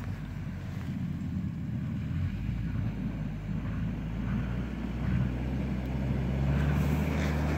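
UAZ Patriot SUV's engine running as it drives through snow toward the listener, getting steadily louder as it comes closer.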